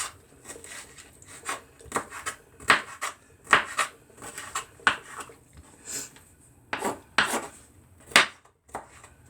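Kitchen knife chopping hot peppers on a cutting board: a string of sharp, irregular knocks, one or two a second.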